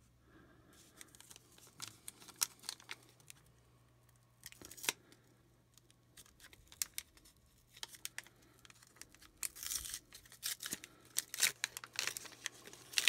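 Pokémon card booster pack wrappers being torn open and crinkled by hand, with scattered handling clicks. The crinkling grows denser and louder from about nine seconds in.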